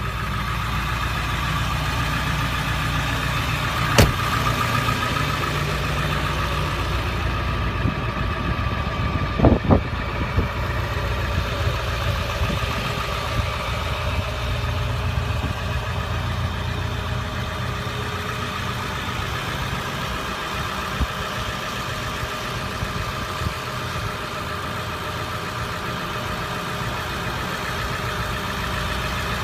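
The 7.3-litre Powerstroke V8 turbo diesel of a 2002 Ford F-250 idling steadily. A sharp click comes about four seconds in, and two knocks come close together near ten seconds.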